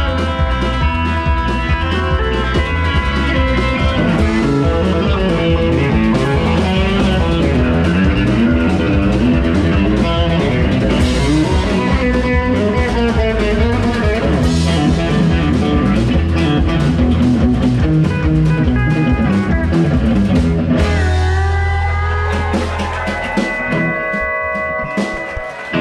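Live country band playing an instrumental passage: electric guitar, pedal steel guitar, bass and drums. About 21 seconds in the band stops on a held chord that rings out and fades.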